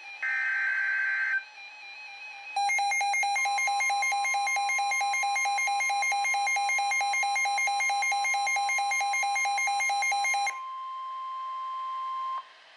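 The last burst of an emergency alert data header, a buzzy warbling tone lasting about a second. About two and a half seconds in, a rapid pulsing electronic alarm beep starts. Under it begins the NOAA Weather Radio steady 1050 Hz warning tone, which carries on alone for about two seconds after the beeping stops and then cuts off before the next warning is read.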